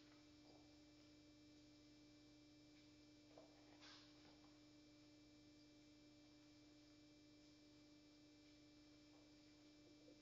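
Near silence with a faint steady electrical hum, and a couple of faint soft clicks about three and a half seconds in.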